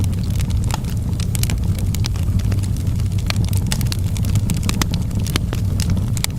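Wood fire burning in a fireplace: a steady low rumble of the flames with many irregular sharp crackles and pops from the burning logs.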